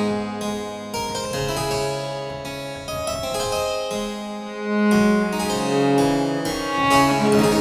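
Harpsichord and cello playing a Baroque sonata: quick runs of plucked harpsichord notes over long held low notes.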